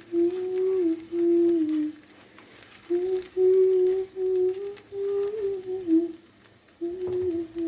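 Background music: a single wordless humming-like melody line moving in short stepped notes, breaking off about two seconds in and again near six seconds.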